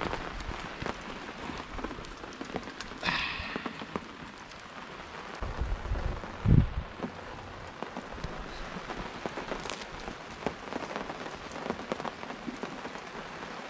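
Steady rain falling, with many fine drops pattering. A single dull thump stands out about six and a half seconds in.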